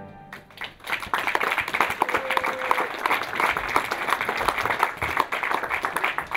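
Audience applauding, starting about half a second in and going on steadily.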